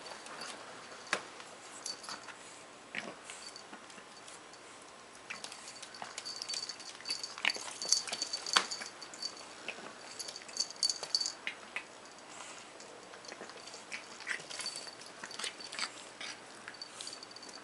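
Pug puppy playing on a wooden floor: irregular clicks and scuffles of its paws and claws, busiest from about six to eleven seconds in.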